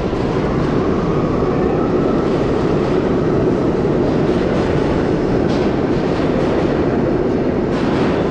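R32 subway train running along the far track through the station, a steady loud rumble of wheels on rail with a few light clacks in the second half.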